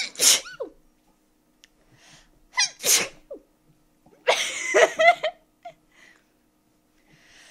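A person sneezing three times about two seconds apart, each sneeze set off by sniffed pepper and preceded by a short in-breath. The third sneeze is longer and more drawn out, with a voiced tail.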